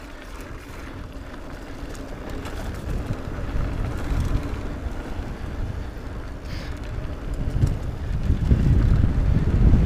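Wind rushing over the microphone and tyres running on dirt as a mountain bike descends a trail, with scattered rattles and clicks from the bike. The rush grows louder in the last few seconds as speed builds.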